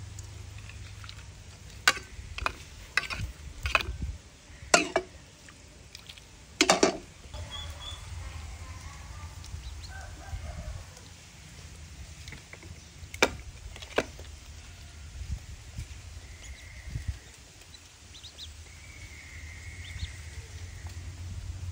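Young ducks eating from a ceramic plate: a series of sharp clicks and clatters against the plate in the first seven seconds and two more around thirteen seconds in, with a few faint short calls later.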